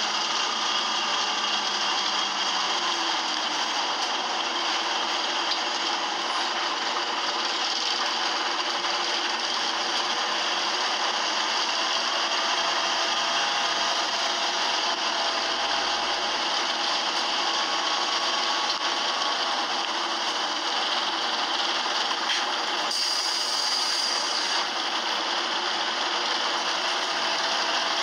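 Optare Solo bus engine running with a steady harsh, rasping noise, heard from inside the passenger saloon: the sign of a noisy engine fault.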